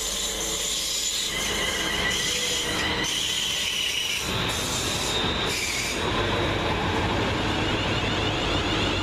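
Class 350 Desiro electric multiple unit braking into the platform, with a high squealing whine that falls slightly in pitch. About six seconds in the whine stops and a low steady hum is left as the train stands.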